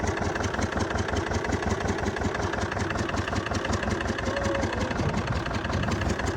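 A motor engine running steadily at a constant speed, with a fast, even beat.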